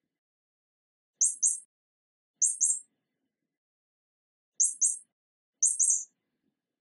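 Mouse squeaks: four short, high-pitched double squeaks, each a quick pair of chirps, spaced one to two seconds apart.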